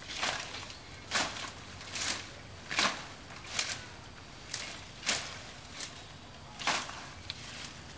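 Dry leaves and brush rustling and crackling in short, sharp bursts about once a second, from a person working through the undergrowth.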